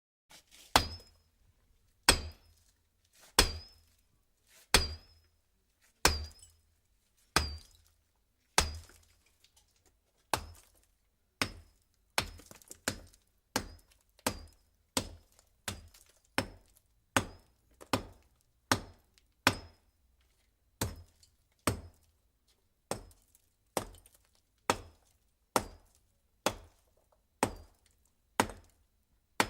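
A long series of sharp, evenly spaced strikes, each with a brief high ring. They come about once every second and a quarter, then a little faster, about once a second, from around a third of the way in.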